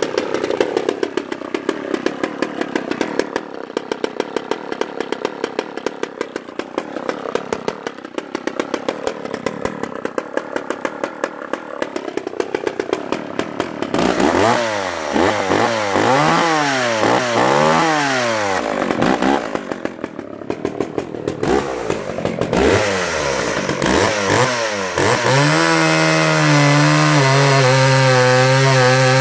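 McCulloch Pro Mac 10-10 two-stroke chainsaw idling for about fourteen seconds, then revved up and down again and again. Near the end it is held at high revs as the chain cuts through a log.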